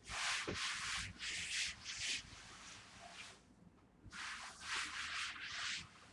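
Cloth being scrubbed by hand across a laminate floor in quick back-and-forth strokes: a run of about five strokes, a pause of over a second, then about four more.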